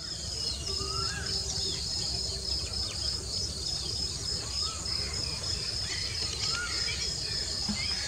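Natural outdoor ambience: insects trilling steadily at a high pitch, with scattered small bird chirps and a low steady rumble underneath.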